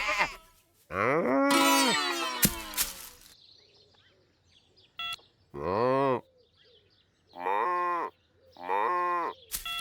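Cartoon cow mooing: one long moo about a second in, then three shorter moos in the second half, with a few brief clicks between them.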